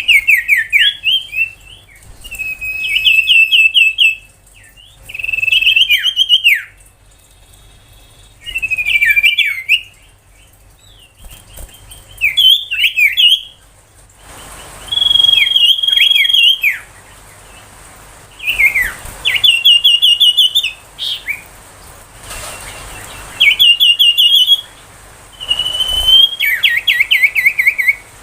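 Common iora singing: loud phrases of rapid, repeated high whistled notes, each lasting a second or two, given one after another with short pauses between.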